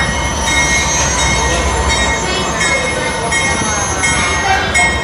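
Amtrak P42 diesel locomotive's engine running with a steady low rumble as it is turned on a turntable, with a high-pitched metallic squeal that comes and goes.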